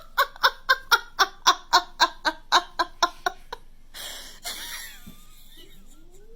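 A person laughing hard in a quick, even run of about a dozen bursts, roughly four a second, which stops about three and a half seconds in. A quieter hiss follows, with a faint rising cry near the end.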